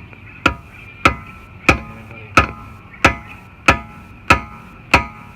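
Hammer blows on a steel socket, driving it onto a seized wheel lock nut: about nine evenly spaced strikes, each with a short metallic ring.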